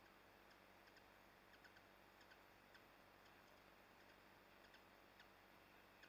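Near silence, with faint, irregular high ticks, several coming in quick pairs.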